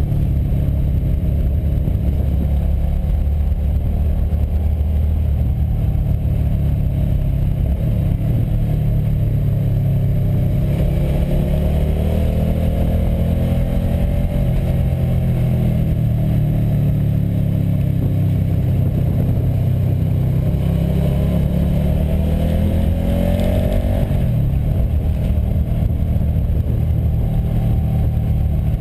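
Motorcycle engine running under way, heard from the rider's own bike over a heavy low rush of riding wind. The engine pitch climbs twice under throttle, and the second climb cuts off abruptly near the end.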